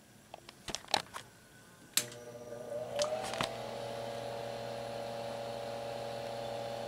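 A few handling clicks, then a sharp switch click about two seconds in as a Mako 300 sweep-tube linear amplifier is powered up. A steady power-supply hum follows, with a higher tone that rises and levels off within about a second and a half.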